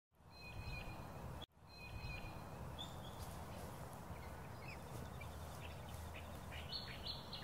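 Ravens giving short, scattered calls, with several calls in quick succession near the end, over a steady low background rumble. The sound cuts out briefly at the start and again about a second and a half in.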